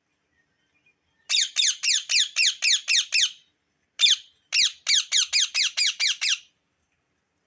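Rose-ringed (Indian ringneck) parakeet calling: two rapid runs of shrill, harsh notes, about four a second, each note sliding down in pitch, with a short break between the runs.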